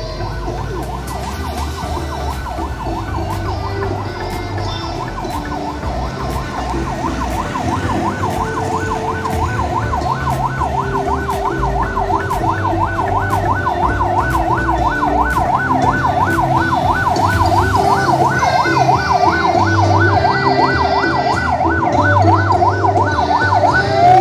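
Police car siren in fast yelp mode, a rapid up-and-down warble that grows steadily louder as the car approaches. Right at the end it changes to a slower rising wail. A low rumble of motorcycle engines runs underneath.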